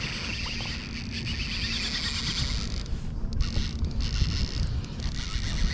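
Wind buffeting the microphone on an open kayak at sea, a steady low rumble with water hiss over it.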